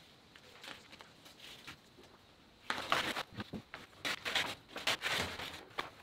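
Masking tape peeling and masking paper being pulled off a freshly painted truck's rear window: faint crackles of tape at first, then, from about three seconds in, a few seconds of loud paper crinkling and tearing as the sheet comes away.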